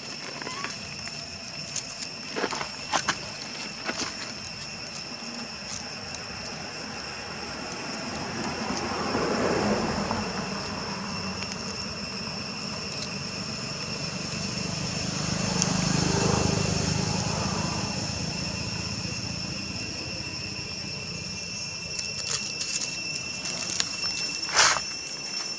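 Outdoor ambience with a steady high-pitched drone. Twice, about nine and sixteen seconds in, a rumble rises and fades away, like a vehicle passing. A few sharp clicks come near the start and again near the end.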